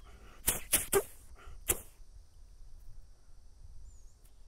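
Four short, sharp clicks within the first two seconds, then a faint steady high hiss with a single brief high chirp near the end.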